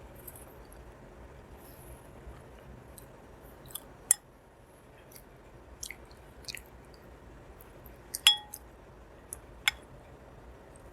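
Close-miked mouth sounds of eating soft Indian sweets: chewing with wet clicks and smacks. A few sharp clicks stand out, the loudest about eight seconds in with a brief ring.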